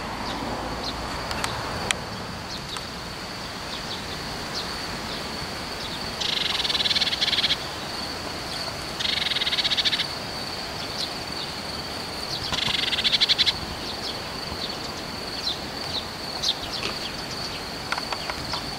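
An adult blue tit sounding its alarm at a person near the nest: three rattling churrs, each about a second long, with short thin calls between them.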